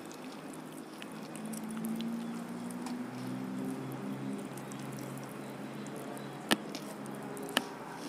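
Hands tearing apart a whole fried chicken, the crisp skin crackling in small scattered ticks, with two sharp snaps about a second apart near the end. A low hum sounds in the background for the first few seconds.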